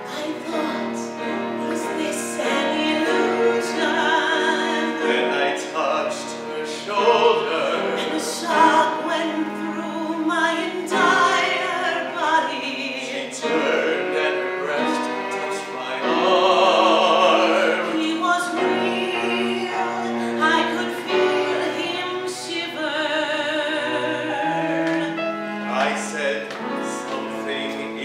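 Musical-theatre song sung by a woman and a man in turn, with vibrato on the held notes, over instrumental accompaniment.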